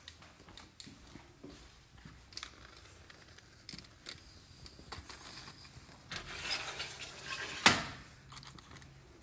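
Handling noise on a phone's microphone as it is carried: rubbing and rustling with scattered clicks, and one sharp, louder click about three-quarters of the way through.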